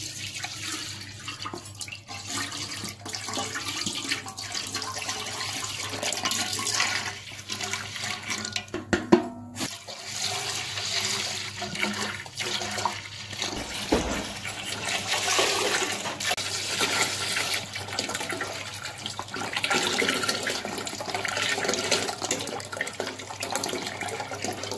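Milk pouring in a continuous stream into a large stainless-steel pot, splashing into the milk already in it as the pot fills.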